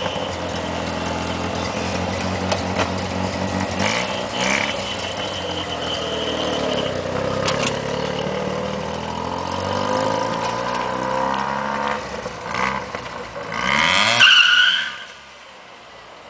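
Mazda 13B two-rotor rotary engine in a Toyota Starlet accelerating away, its pitch rising and falling several times as it revs through the gears. A louder surge just before the end, then the sound drops off sharply.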